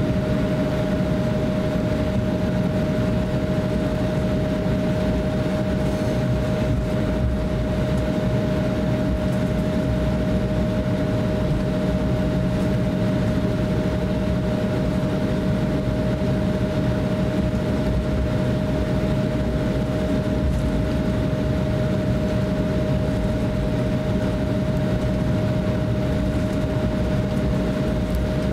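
Cabin noise inside an Embraer E170 airliner taxiing, its GE CF34-8E turbofans running at taxi power: one steady tone over a continuous low rumble.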